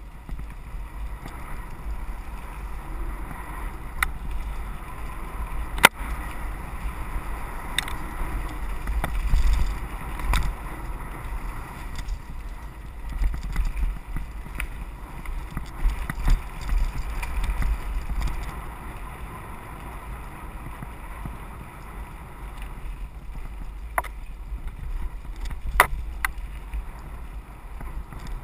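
Mountain bike riding down a rough dirt singletrack: a steady low rumble of the ride with wind on the microphone, broken by several sharp clicks and knocks from the bike rattling over bumps.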